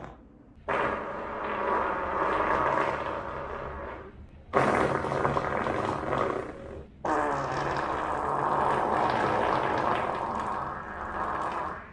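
Human flatulence: three long farts, each a few seconds long, one after another, the second starting suddenly and loudest.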